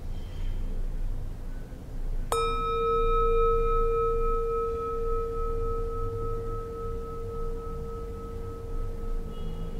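Hand-held metal singing bowl struck once with its striker about two seconds in, then ringing on with a low hum and a higher, gently wavering overtone that slowly fade.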